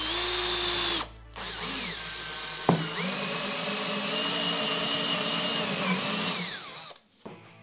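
Cordless drill boring cable holes through a thin white strip, its motor whine steady while it runs. It runs in three goes: a first run that stops about a second in, a short run that winds down, then a longer run that winds down and stops near the end.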